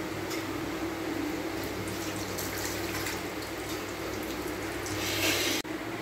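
Chana dal laddoos deep-frying in hot oil in a karahi: a steady sizzle with a fine crackle. It swells louder just before it stops abruptly near the end.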